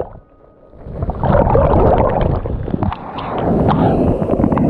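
Shallow surf washing around and over a camera at the waterline: gurgling, splashing water full of small pops and clicks. It comes in about a second in, after a brief lull.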